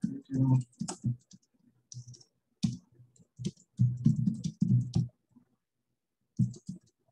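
Typing on a computer keyboard: uneven runs of key clicks with thuds from the keystrokes, a pause about five seconds in, then a last few keys near the end.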